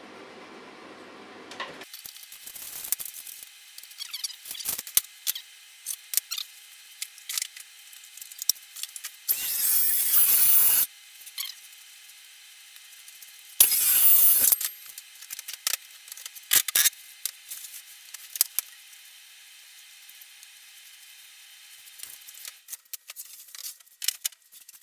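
Work sounds of plywood and tools being handled on a chest freezer lid: scattered clicks and knocks, with two louder rushes of noise, each about a second long, roughly ten and fourteen seconds in. A low hum stops suddenly about two seconds in.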